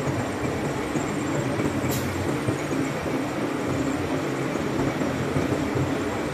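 Heavy loading machinery running with a steady low drone, with a single sharp click about two seconds in.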